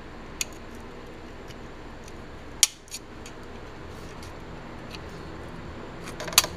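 Small screwdriver clicking against stainless steel trim as the ground-down rivets are pried and popped out: a few sharp metallic clicks, the loudest about two and a half seconds in and a quick cluster near the end. A shop fan hums steadily underneath.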